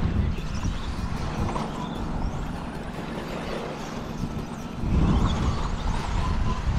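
Electric RC stadium trucks racing: the faint whine of their motors rises and falls as they accelerate and brake, over a low rumble of wind on the microphone that eases off in the middle and comes back strongly about five seconds in.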